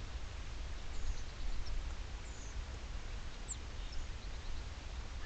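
Faint, high, thin bird chirps a few times over a steady low rumble.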